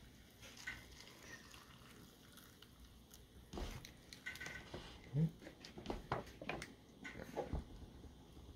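Hot water poured from a stainless steel kettle into paper cups of dry instant noodles, faint. Several light clicks and knocks from the kettle, cups and paper lids come in the middle few seconds.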